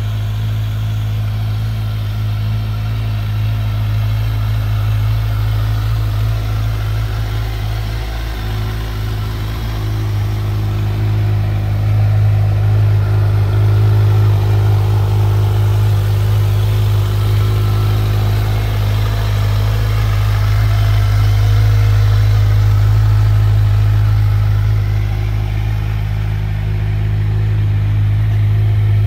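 Kawasaki Z1000SX inline-four engine running at a steady idle, a constant low hum with no revving.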